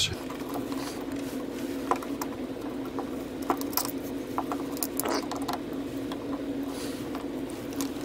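Scattered small clicks and light metal taps of a screwdriver working out the screws of the key-interlock solenoid on a Hyundai ignition lock housing, with the loose parts handled, over a steady background hum.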